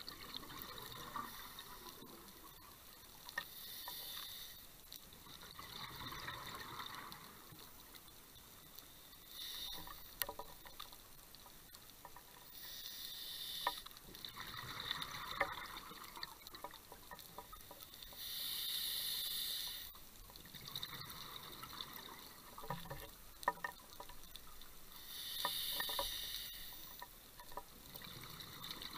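Scuba diver breathing through a regulator underwater: a hiss on each breath in and a bubbling rush on each breath out, coming back every few seconds, with scattered sharp clicks in between.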